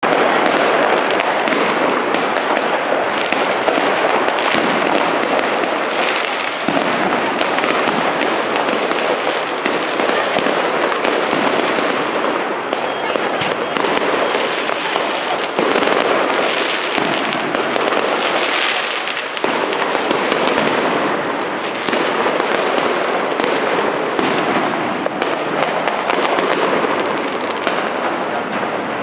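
Fireworks going off in a dense, continuous barrage of rapid crackling and popping, with no pause.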